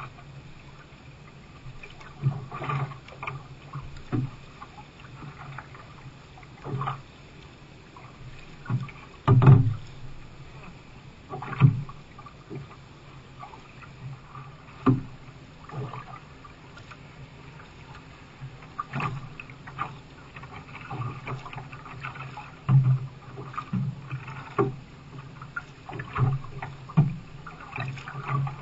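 Canoe being paddled on choppy sea: paddle strokes and water slapping against the hull, with irregular knocks every second or two over a steady wash of water.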